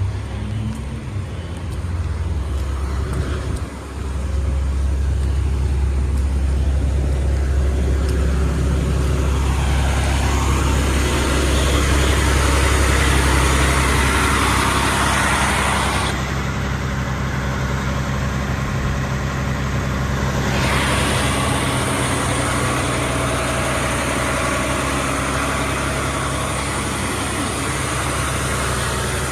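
Fire truck's diesel engine running steadily close by, a loud low rumble. A rushing noise swells over it for several seconds midway.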